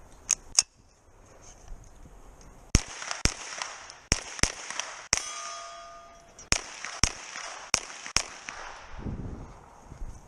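Pistol-caliber carbine firing about a dozen rapid shots in pairs and short strings across a stage, with pauses between strings. Around five seconds in, a hit steel target rings on for a second or so.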